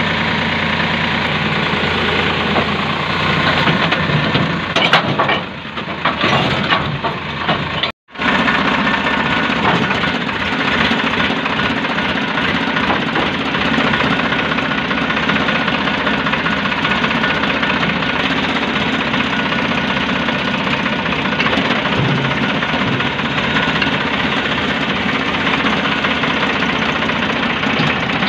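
Sonalika 745 tractor's diesel engine running steadily while the hydraulic tipping trailer is worked. A few sharp knocks come around six seconds in, and the sound breaks off for a moment about eight seconds in.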